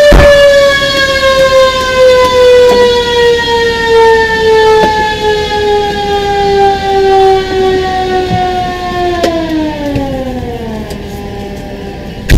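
Fire engine siren: one loud wailing tone that slowly sinks in pitch, then drops faster and dies away about ten seconds in. A few sharp clicks sound over it, a loud one at the start and another at the very end.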